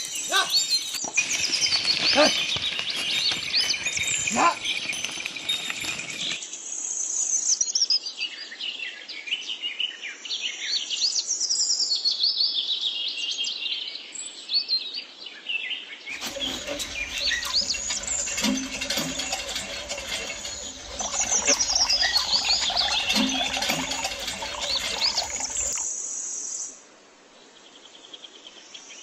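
Songbirds chirping and trilling in a busy, overlapping chorus of short rising and falling calls. It changes abruptly about six seconds in, and the sound drops sharply near the end.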